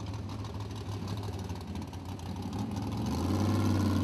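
Off-road racing buggy's engine running as it climbs a steep dirt hill, heard from a distance, getting louder about three seconds in.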